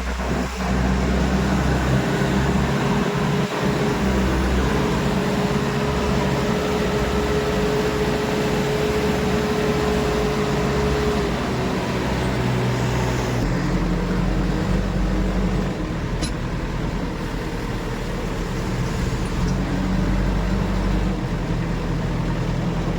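Heavy diesel machine engine running steadily, its note shifting about 13 seconds in.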